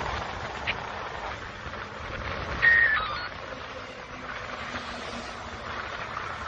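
Road traffic going by below: the steady rush of a lorry and cars passing. About two and a half seconds in, a short beep steps down in pitch and is the loudest sound.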